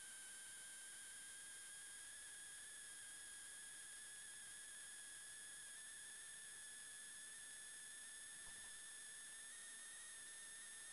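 Near silence: a faint steady high-pitched whine over hiss, drifting very slightly upward in pitch.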